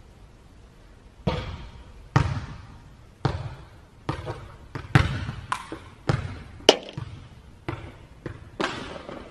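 A ball bouncing on a hardwood court floor about a dozen times at uneven intervals, each bounce echoing through a large, reverberant warehouse hall.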